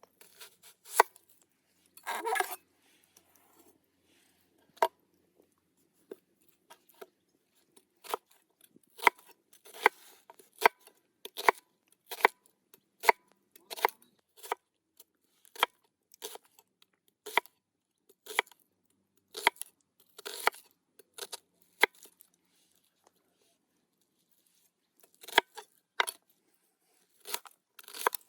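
Food being cut by hand: a string of short, sharp, crisp cutting or crunching strokes, irregularly spaced about one or two a second, with a pause of a few seconds near the end.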